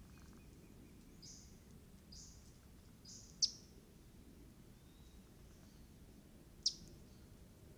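Wild birds calling: three short high chirps about a second apart, then two sharp, loud chip notes, one about three and a half seconds in and one near the end, over a faint steady hiss of camera-trap background noise.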